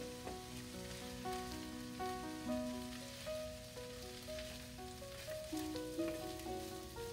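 Peas and onions sizzling as they fry in olive oil in a stainless steel pan, stirred with a wooden spoon, under background music: a melody of steady notes.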